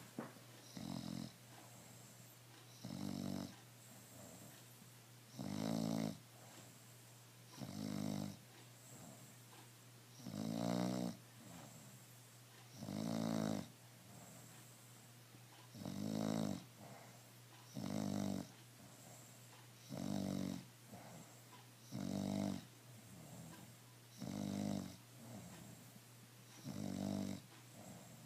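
Bulldog snoring in its sleep: regular rattling snores, one about every two seconds, about a dozen in all.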